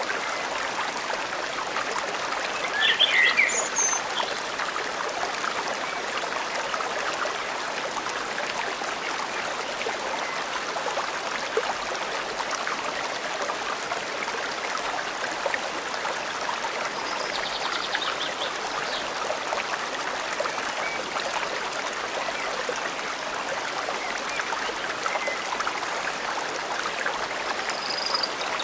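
Forest stream flowing steadily, with a few short bird calls over it, the loudest about three seconds in.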